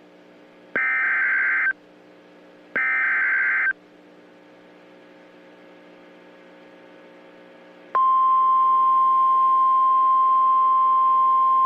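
Emergency Alert System header: two short bursts of buzzy data tones, each just under a second and about a second apart, over a faint low hum. About eight seconds in, the loud steady single-pitch alert tone of a severe thunderstorm warning begins and holds.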